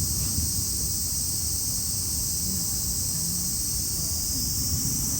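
Steady, high-pitched shrill chorus of summer cicadas, over a constant low rumble of wind on the microphone.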